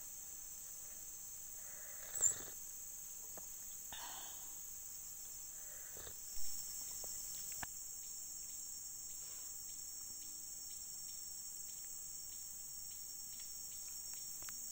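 Steady high-pitched drone of forest insects. Two brief louder knocks come about two and six seconds in.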